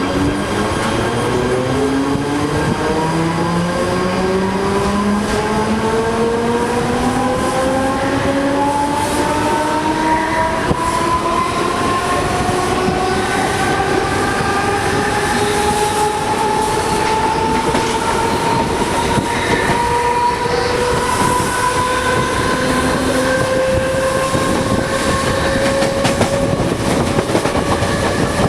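Electric suburban train pulling away: the traction motors' whine climbs steadily in pitch as the train gathers speed, quickly at first and then more gradually, over the steady rumble of the train.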